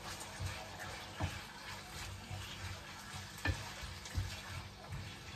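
Small pieces of chicken sizzling in a frying pan, with a spatula knocking and scraping against the pan about five times as the meat is stirred.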